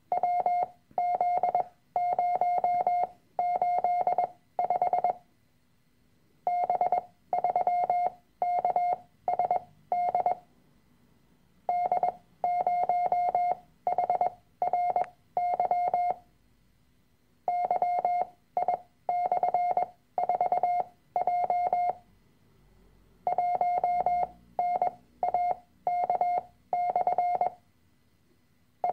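Morse code practice tones: a single steady pitch keyed on and off in dots and dashes. The code comes in five-character groups of random letters, figures and signs, each group lasting about four seconds with a pause of just over a second before the next.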